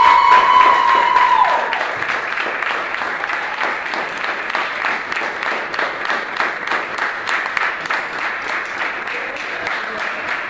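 A roomful of people applauding, fast and steady. At the start one voice holds a long high cheer over the clapping, which drops off about one and a half seconds in.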